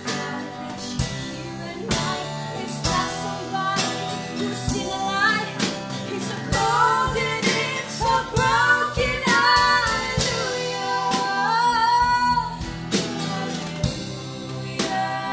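Two women singing a Christmas medley together over keyboards, acoustic guitar and a drum kit keeping a steady beat.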